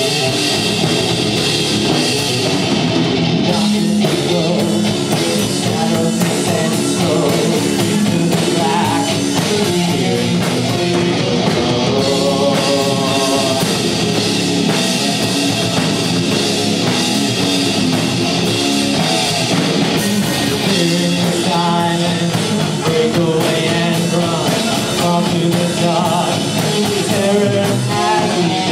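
Live rock band playing loudly: electric guitar, bass guitar and drum kit under a sung lead vocal.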